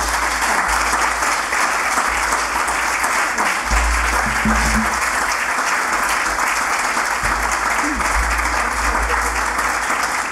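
Audience applauding: many people clapping in a steady, dense wash of claps.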